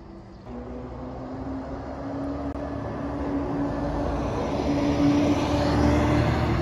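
Single-deck regional bus driving past close by. Its engine rumble and a steady whine rise slightly in pitch and grow louder as it approaches, loudest about five to six seconds in as it passes and pulls away.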